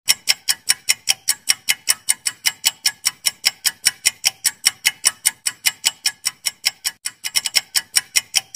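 Countdown-timer ticking sound effect: sharp, evenly spaced clock ticks, about four or five a second, with a brief quicker run of ticks about seven seconds in.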